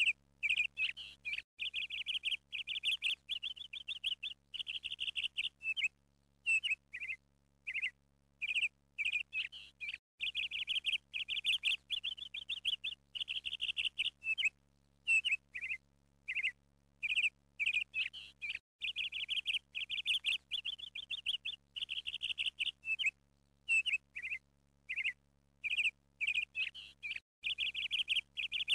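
A small songbird chirping and trilling in quick, high-pitched phrases with short pauses between them.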